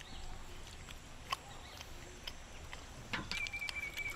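Quiet rural outdoor ambience with scattered sharp clicks, and near the end a steady high animal call lasting about a second.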